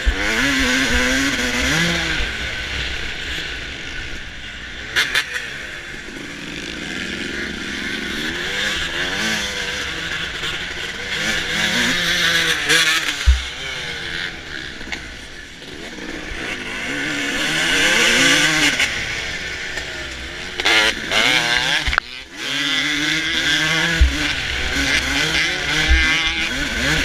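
2005 Suzuki RM250's single-cylinder two-stroke engine revving hard under race throttle, its pitch climbing and falling again and again through the gears over a steady rushing noise. A few sharp thuds come through, and the engine drops away briefly about two-thirds of the way in.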